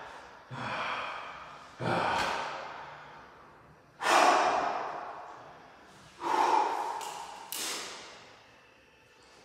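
A man breathing hard and loudly during yoga: five forceful, hissing exhales a second or two apart, each starting suddenly and trailing off.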